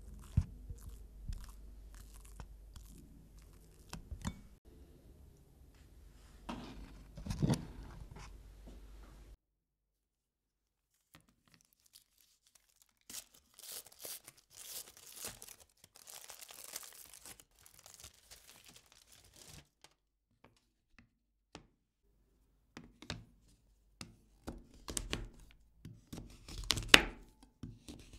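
A spatula scrapes and taps as custard cream is spread in a metal cake ring, with one louder knock about seven seconds in, then a short silence. After that comes several seconds of crackly tearing and crinkling, like a wrapper being torn. Near the end, a knife chops through a bar of dark chocolate on a bamboo cutting board in sharp cracks, the loudest about a second before the end.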